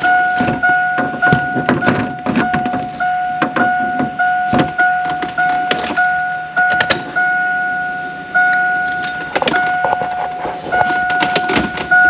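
Truck's warning chime beeping steadily, a repeating tone with short gaps, over a series of sharp clicks and knocks from handling in the cab.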